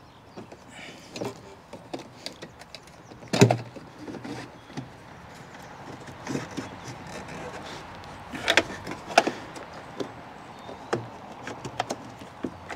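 Hard plastic clicks and knocks as a rechargeable battery pack is pushed and wedged into a battery compartment of a Toslon X Boat 730 bait boat's plastic hull, with the retaining clips prised open by hand. A sharper knock comes about three and a half seconds in and two more around nine seconds in.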